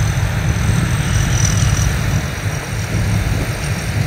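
A locally built rice combine harvester's diesel engine running steadily while it cuts through the paddy, a continuous low rumble with a rushing noise over it.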